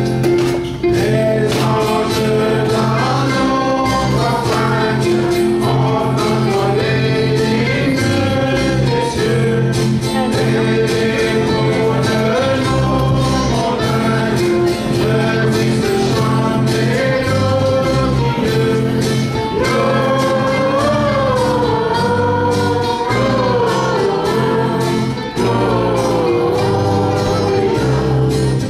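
Mixed choir of women and men singing a Christmas song, accompanied by strummed acoustic guitars.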